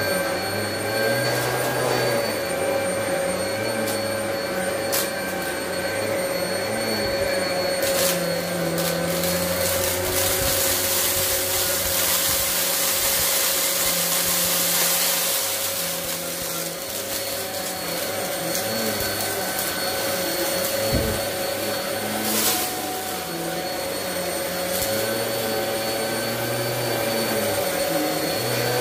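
Bissell PowerLifter Pet upright vacuum cleaner running steadily with a constant motor whine. About ten to sixteen seconds in, a brighter rushing hiss and crunching rattle comes in as it sucks up a pile of confetti and grit from the rug.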